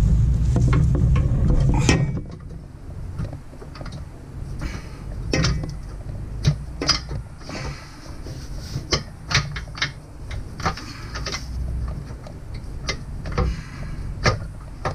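Socket wrench work on the top nut of a rear shock absorber: irregular sharp metal clicks and clinks of the socket and tool against the shock hardware. These follow a steady low mechanical hum that stops about two seconds in.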